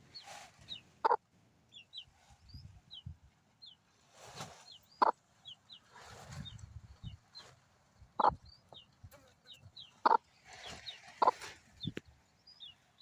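Chicken clucking: short, sharp single clucks every second or two, with faint high chirps and soft rustling between them.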